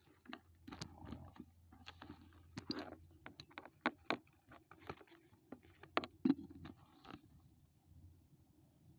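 Handling noise as the siren's handheld microphone and its cable are got ready: scattered light clicks and rustles over a faint steady low hum.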